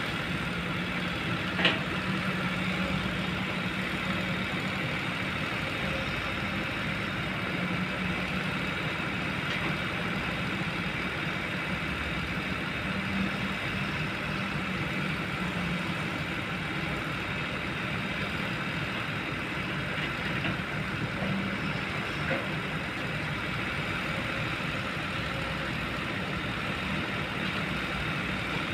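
Diesel engine of a Kobelco long-boom excavator running steadily, with a sharp knock about two seconds in and another, fainter one near the end.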